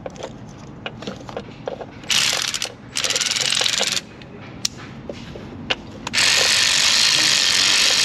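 Power ratchet on a long extension threading a new spark plug into a Northstar V8 cylinder head. It whirs in two short runs about two and three seconds in, then runs steadily from about six seconds in, after a few light clicks of tools.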